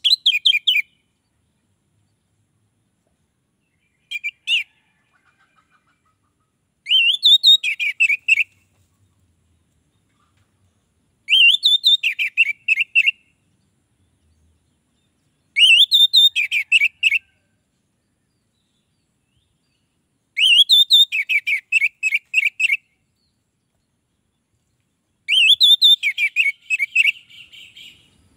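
An orange-headed thrush singing loud song phrases about every four to five seconds. Each phrase opens with a rising whistle and runs into a fast string of repeated notes, with a short fragment about four seconds in.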